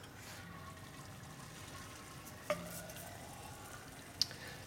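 Faint steady hiss of liquid nitrogen boiling off in the neck of a 10-litre Dewar as a thin rod is lowered into it, with two short clicks about two and a half and four seconds in.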